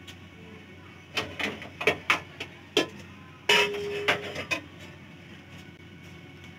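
A utensil knocking and scraping against a metal kadhai while boiled rice is spread in it for biryani layering: a run of sharp knocks, then one louder clank with a brief ring about three and a half seconds in, and a few lighter knocks after.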